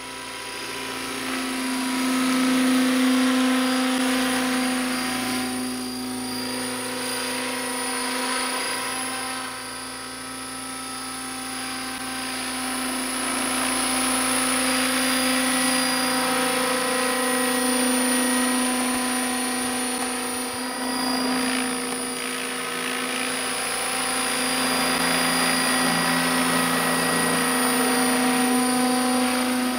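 Radio-controlled scale model Bell 206 JetRanger helicopter in flight: a steady, high-pitched whine from its drive with the buzz of the rotors. It swells and fades as the model flies past, growing louder over the first few seconds, dipping around ten seconds and again around twenty-two seconds, then loud again near the end as it comes close.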